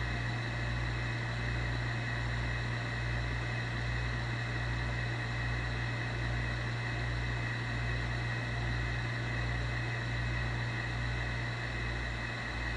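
Steady background hum and hiss with a low throb pulsing a little faster than once a second, like a fan or other small machine running.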